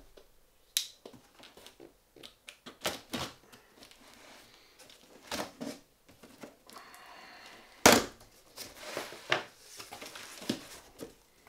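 Shipping box being opened by hand: cardboard and packing material rustling and crinkling, with scattered clicks and knocks. The loudest is a sharp knock about eight seconds in.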